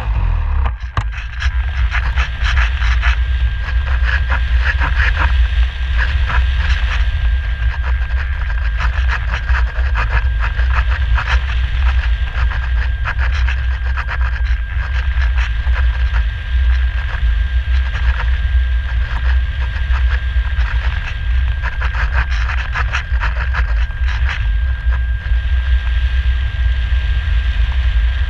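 Wind rushing over the microphone of a camera mounted on a Radian Pro RC glider in flight, a heavy rumble with constant crackling buffets. A thin steady whistle joins in about a quarter of the way through.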